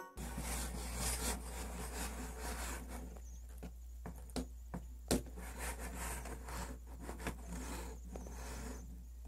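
Hands handling plastic toys: soft rubbing and scraping with a few light clicks and knocks, the sharpest about five seconds in, over a steady low hum.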